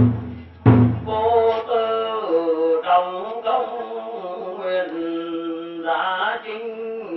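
A man chanting a Vietnamese funeral oration into a microphone, long drawn-out sung phrases over held musical tones, with two heavy drum strokes in the first second.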